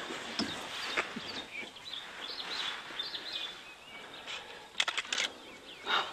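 Birds chirping, short calls one after another, with a quick cluster of sharp clicks about five seconds in.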